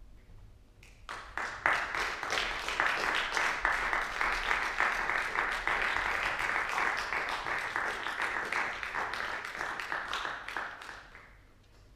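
Audience applauding: the clapping starts about a second in, holds steady and dies away shortly before the end.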